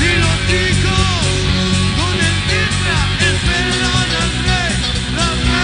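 Recorded rock song played by a full band, with a steady low end and a melody line that bends up and down in pitch.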